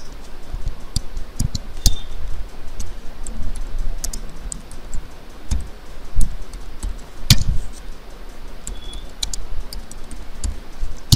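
Typing on a computer keyboard: irregular key clicks, some with a low thud, a few strikes louder than the rest, the loudest about seven seconds in.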